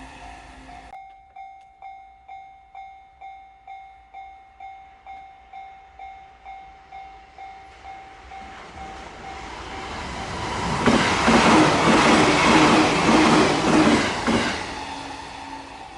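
Level crossing warning bell ringing in even electronic dings about twice a second. A JR limited express electric train approaches and passes at speed from about 11 s to 14.5 s, its wheels clattering over the rail joints and drowning out the bell. At the start, the noise of an earlier train is cut off about a second in.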